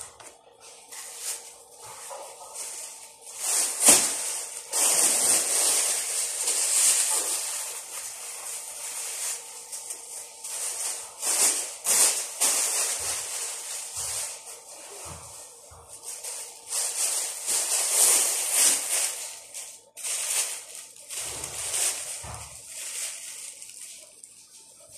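Thin plastic bag crinkling and rustling as it is handled and crumpled, in stretches several seconds long with short pauses between, and a few light knocks.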